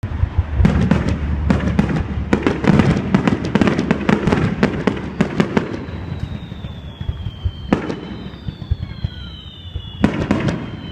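Fireworks display: a rapid barrage of sharp bangs and crackles for about five seconds, then a few scattered single bangs. Faint high tones glide slowly downward in the quieter second half.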